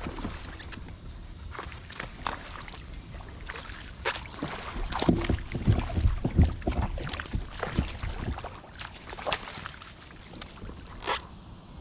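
Water sloshing around a kayak, with irregular knocks and thumps on the hull and gear, busiest and loudest in the middle.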